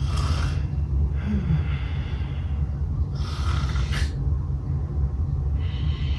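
A person snoring: four noisy breaths, one every second or two, over a steady low rumble.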